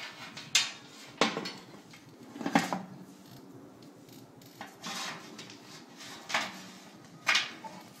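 Irregular metal clanks and knocks, about seven strikes with some scraping between, as a furnace blower motor is handled and fitted back into the sheet-metal blower housing.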